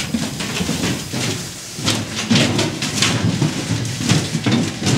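Footsteps and clothing rustle while walking, with handheld-camera handling noise: a run of irregular knocks and scraping crackle.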